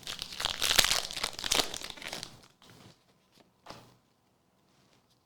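Foil Pokémon booster pack being torn open and crinkled for about two and a half seconds, followed by one light tap a little over a second later.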